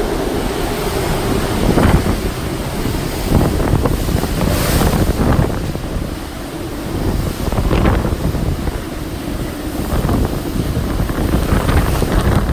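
Typhoon wind blowing hard in gusts, buffeting the microphone with a heavy low rumble that swells and eases every second or two.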